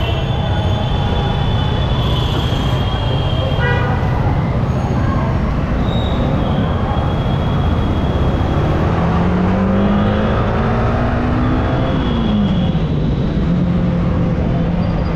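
Riding through road traffic: a steady rumble of wind and road noise, with vehicle horns honking several times, each held for a second or more. About nine seconds in, an engine note climbs in pitch as it accelerates, falls away sharply near twelve seconds, then holds a steady lower note.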